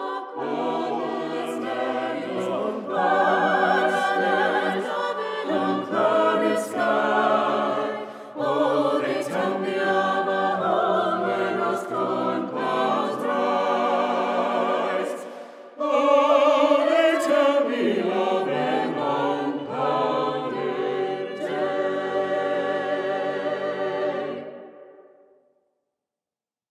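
A small mixed choir of men's and women's voices singing in harmony; the last chord dies away about two seconds before the end.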